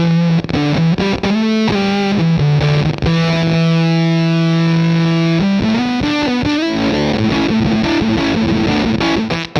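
Electric guitar distorted through the Earthquaker Devices Gary fuzz/overdrive pedal, playing held notes and chords with long sustain. One note rings out for about two and a half seconds mid-way, and the notes change more quickly near the end.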